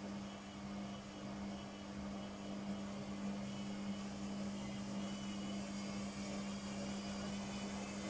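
Logik front-loading washing machine in its spin cycle: a steady motor hum with a thin high whine that grows a little louder in the second half.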